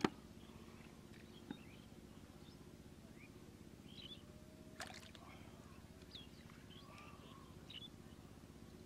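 Quiet outdoor background with a steady low hum and a few faint short chirps, broken by a sharp tap at the very start and a smaller one about a second and a half in.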